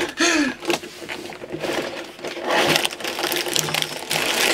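A LEGO set's cardboard box shaken and emptied, its plastic bags of bricks rustling and clattering out onto a table.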